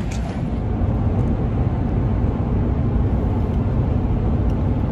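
Steady road and engine drone inside a pickup truck's cab at highway speed while it tows a travel trailer.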